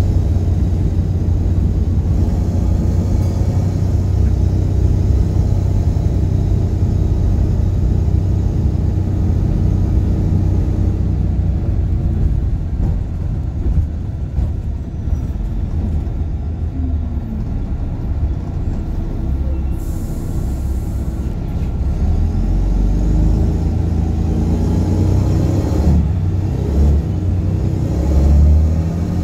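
Volvo B7RLE bus's D7C diesel engine and ZF automatic gearbox heard from inside the saloon while driving, a steady deep rumble from an exhaust that is blown. It eases off in the middle with a brief hiss about twenty seconds in, then the engine note rises again as the bus accelerates near the end.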